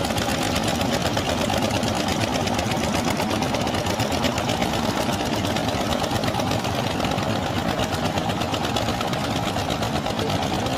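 Fishing boat's engine running steadily under way, with a rapid, even beat.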